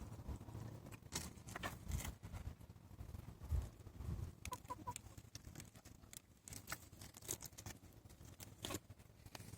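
Goat chewing pumpkin: irregular crunching clicks and crackles, with a couple of dull knocks and a few short high calls about halfway through.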